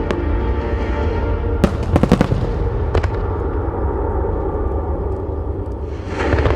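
Aerial firework shells bursting with sharp reports, a quick cluster about two seconds in and another a second later, over loud music with a heavy bass. Near the end a hissing rush swells up.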